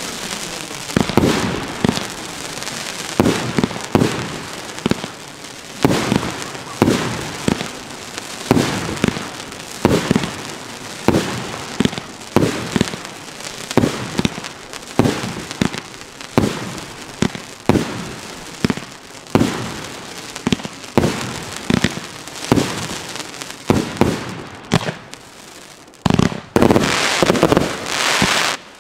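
Fireworks going off in quick succession: shells launching and bursting with sharp bangs about once or twice a second. Near the end they come denser and louder, then stop abruptly.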